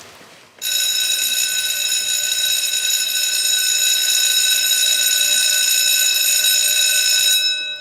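Electric school bell ringing steadily for about seven seconds, starting suddenly and cutting off sharply near the end: the bell for the break between lessons.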